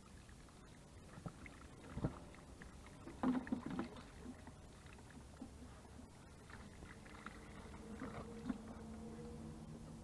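Knocks and scrapes of stones and a clay watering can being handled on rock, the loudest cluster about three to four seconds in. From about seven seconds a steady low hum comes in and carries on.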